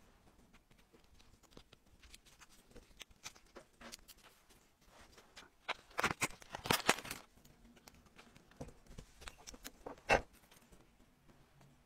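Small clicks and taps of a leather watch strap and a watch case being handled, with a burst of plastic packaging crinkling about six to seven seconds in. One sharp click sounds about ten seconds in as the strap end is pressed into the case lugs.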